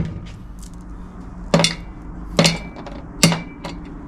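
Three sharp metallic clanks about a second apart, each with a short ring: bolts being set down one at a time on a removed steel engine flexplate.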